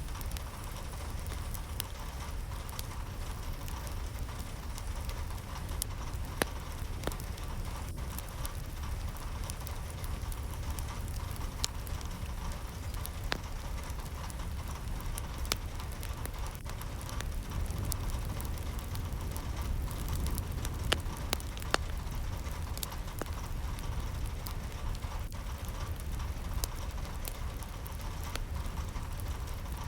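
Steady rain falling, an even hiss with a deep low rumble underneath and scattered sharp drop ticks.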